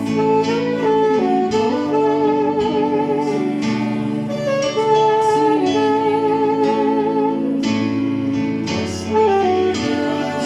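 Worship band playing an instrumental passage: strummed acoustic guitar chords under a lead melody of long held notes with a wavering vibrato.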